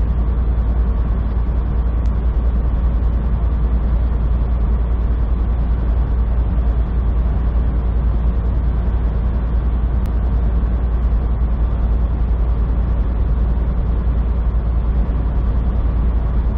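Semi truck's diesel engine running steadily under load with road noise, heard from inside the cab on a long uphill grade: a constant, deep drone with no change in pitch.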